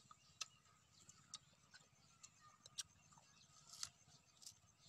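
Faint, crisp crunches and clicks, roughly one a second, of unripe green mangoes being bitten into and their peel torn off with the teeth.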